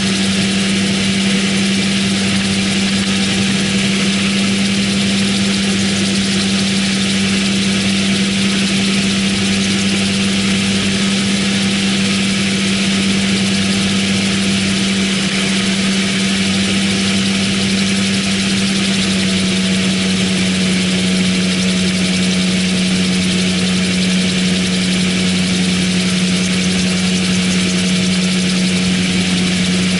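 MTO Sport autogyro in cruise, its engine and pusher propeller making a steady drone over the rush of airflow in the open cockpit. The pitch drops slightly about two-thirds of the way through.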